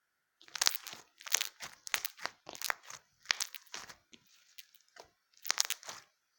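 Crunchy slime being squeezed and pressed by hand, giving a string of crackling, popping crunches in quick bursts. After a short lull with a few faint clicks, one more crunch comes near the end.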